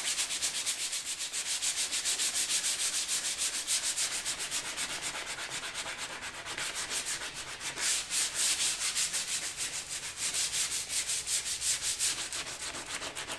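Sandpaper rubbed by hand over a plastic kayak hull in quick, even back-and-forth strokes, scuffing the gloss off the gouged keel to rough it up before a patch goes on.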